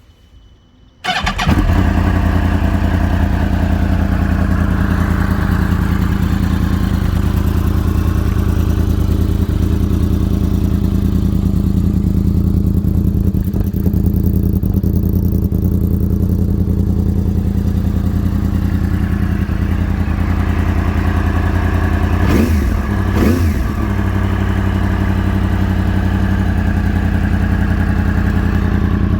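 2009 Yamaha R1's crossplane inline-four motorcycle engine cold-started about a second in, catching at once and then idling steadily. About three-quarters of the way through it is blipped twice, the pitch rising and falling quickly each time, then it settles back to idle.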